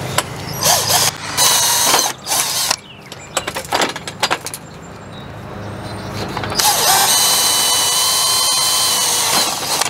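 Cordless drill drilling out the 3/16-inch rivets that hold the end cap on an A&E 8500 awning roller tube: several short bursts, then a steady run of about three seconds near the end.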